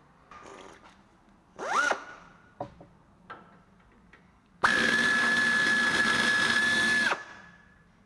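Air ratchet at a rear disc brake assembly. A short burst with a rising whine about two seconds in and a few clicks. Then the tool runs steadily with a high whine for about two and a half seconds and stops.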